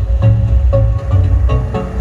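Bass-heavy music played loud through a PA sound system under test, with a pulsing low bass line and short melodic notes above it.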